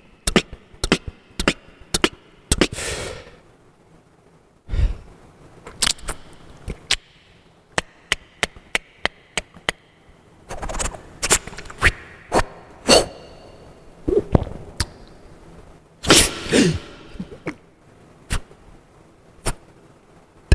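Human beatboxer making a string of mouth sound effects: quick sharp clicks and pops, a deep thump about five seconds in, and a few longer breathy sweeps, one falling in pitch near the end.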